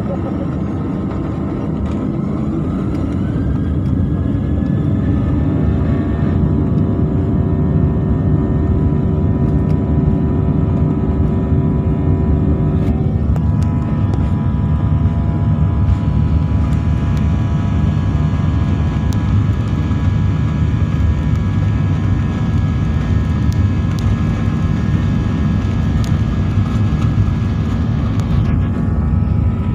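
Boeing 737's turbofan engines spooling up to takeoff thrust, heard from inside the cabin: rising whines in the first few seconds settle into steady tones over a loud rumble that grows as the plane accelerates down the runway.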